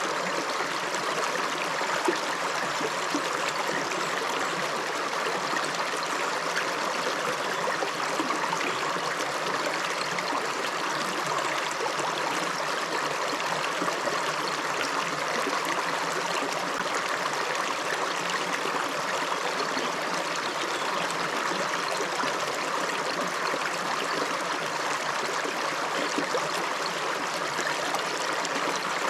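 A river running steadily: an even, unbroken rush of flowing water.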